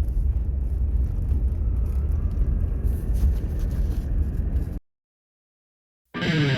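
An engine running steadily with a low rumble, cutting off abruptly about five seconds in. After a second of dead silence, music starts right at the end.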